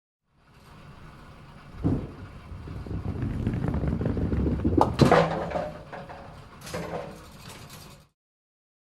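Bowling ball dropped onto the lane with a thud, rolling with a growing rumble, then striking a single pin with a sharp crack about five seconds in, followed by the pin clattering and a second short clatter before it fades out.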